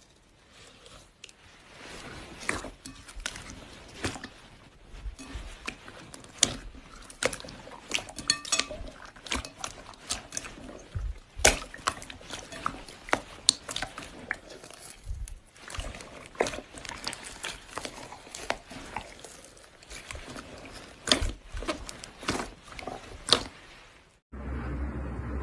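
Slime being squished and pressed by hand, with many sharp, irregular sticky pops and clicks. It cuts off abruptly about a second before the end, replaced by a steadier low-pitched sound.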